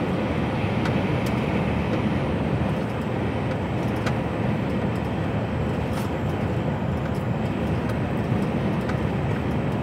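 Steady engine and tyre noise inside the cab of an HGV lorry cruising along a motorway, with a few faint ticks.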